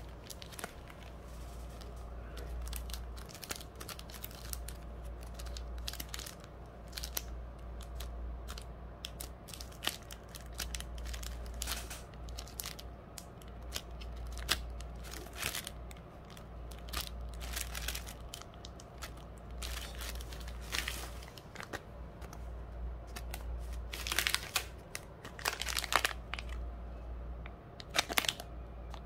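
Clear plastic packaging bags crinkling and crackling as they are handled and turned over, in irregular small crackles. The crackling gets louder about three quarters of the way through and again near the end.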